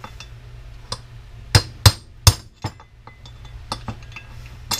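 Hammer blows on metal, knocking a bearing out of a cast aluminum housing: a few light taps, then three hard sharp strikes in quick succession about one and a half seconds in, and more light taps near the end.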